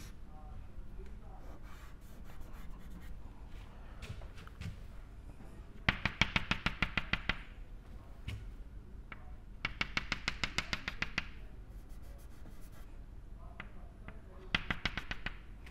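Chalk tapped rapidly against a blackboard to dot out lines: three runs of quick, even taps, about ten a second, each lasting a second or so.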